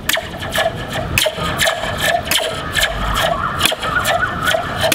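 A Slinky spring hung from the base of a plastic cup, bouncing so its vibrations ring through the cup as an amplifier. It gives a quick, irregular string of metallic twangs and zaps, about two or three a second, like science-fiction sound effects.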